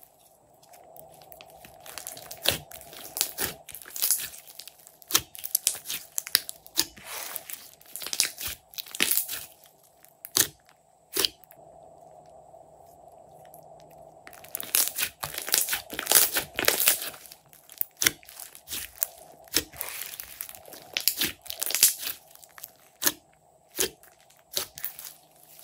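Glossy slime being pressed, stretched and squeezed by hand, giving irregular sharp crackling pops and wet squishes, with a quieter lull near the middle.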